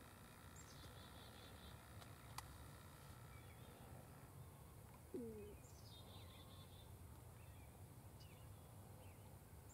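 Near silence in open country with a faint songbird singing: a high note dropping into a short trill, twice. A single sharp click comes a couple of seconds in, and a brief lower call about five seconds in.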